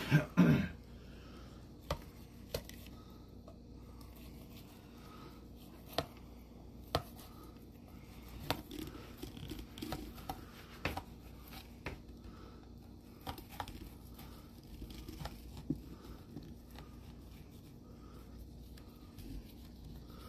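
Knife cutting a bonnethead shark fillet away from its cartilage backbone on a plastic cutting board: soft tearing and scraping of flesh and tough skin, with scattered sharp clicks of the blade. A short loud cough-like burst comes right at the start.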